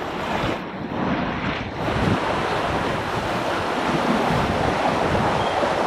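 Sea water rushing along the hulls and wake of a catamaran under sail, a steady wash with slight swells in loudness, mixed with wind blowing over the microphone.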